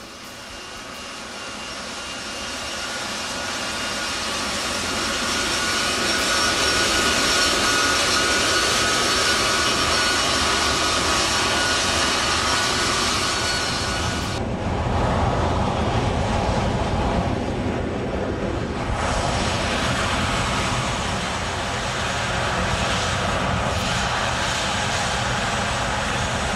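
Jet engines of a parked U.S. Air Force C-17 Globemaster III running on the ground: a steady rushing roar with a high turbine whine, growing louder over the first few seconds. About halfway through, the high whine drops away for a few seconds, leaving a lower rumble, then comes back.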